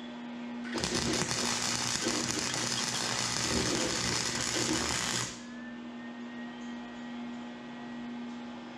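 Electric arc welding on steel wire: the arc crackles steadily for about four and a half seconds, starting about a second in, then stops. A steady hum sounds before and after the weld.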